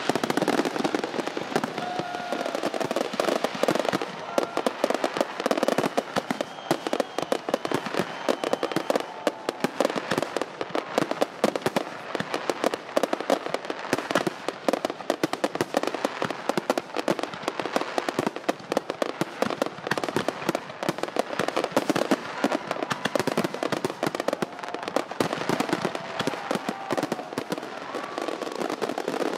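Fireworks going off without a break: a dense, rapid crackling and popping of many small bursts, holding at an even level.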